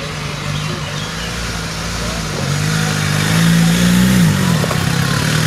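Suzuki Samurai off-road 4x4's engine revving as it climbs a dirt slope under load. The pitch rises about halfway through, dips briefly, then picks up again near the end.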